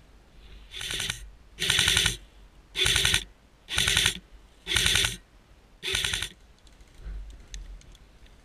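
Airsoft rifle fired in six short full-auto bursts, each about half a second of rapid clicking shots, about a second apart.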